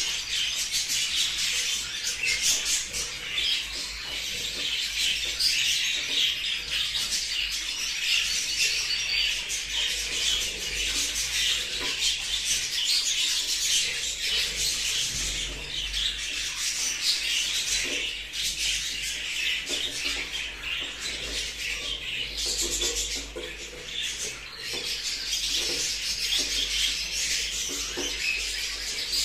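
Many budgerigars chattering together: a dense, continuous twittering of short high chirps and squawks.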